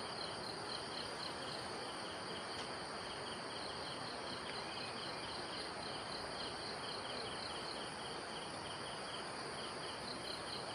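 Insects chirping in a fast, even run of pulses that pauses now and then, over a steady background hiss.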